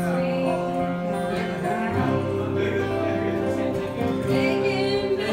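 Live acoustic band: two acoustic guitars strumming with sung vocals over them, a cover of a country-rock song.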